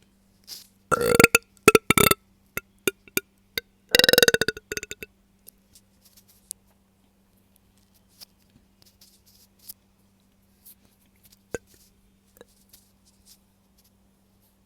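A woman burping loudly twice: a broken burp in several short parts about a second in, and a longer single burp about four seconds in, followed by faint clicks.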